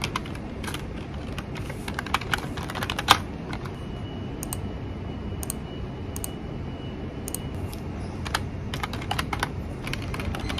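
Typing on a computer keyboard: runs of quick keystroke clicks, sparser for a few seconds in the middle and busier again near the end, over a low steady room hum.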